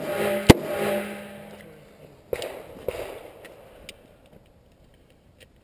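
A Smith & Wesson 686 revolver fires a single loud shot about half a second in, followed by a short ringing echo. Two fainter pops come about two and three seconds in.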